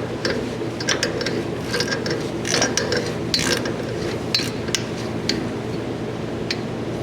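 Hand ratchet wrench clicking in irregular short runs as nuts are turned down, with a few metallic clinks, over a steady low hum.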